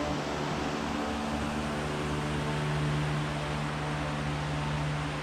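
Steady fan-like machine hum with an even hiss.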